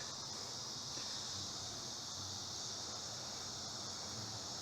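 Steady, high-pitched chorus of insects droning in the grass and trees.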